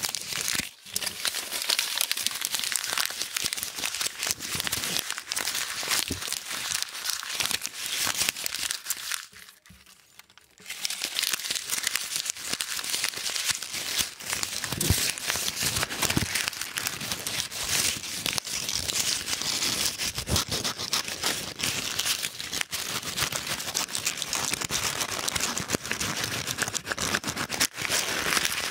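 Paper euro banknotes crumpled and rubbed between fingers close to the microphone, a dense steady crackle and rustle that stops for about a second near the middle.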